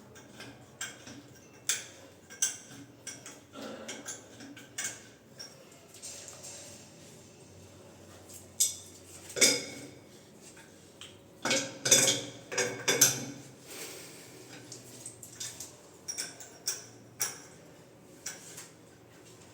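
Irregular metallic clinks and taps of plumbing tools and wall-mixer fittings being handled, with a cluster of louder knocks about two-thirds of the way through.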